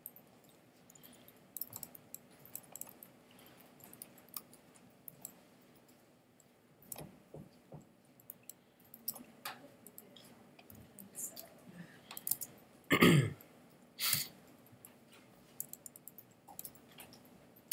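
Scattered computer mouse and keyboard clicks. About thirteen seconds in comes a brief throat-clearing sound, the loudest thing, followed by another sharp sound a second later.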